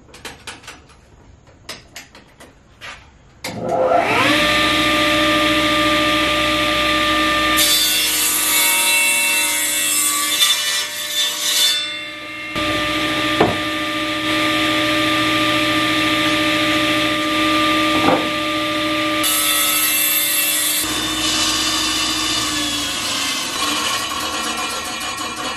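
A few clicks and knocks of wood being handled. Then, about four seconds in, an electric woodworking machine spins up with a rising whine and runs at a steady pitch while cutting wood, the cutting noise changing and briefly dropping out between cuts.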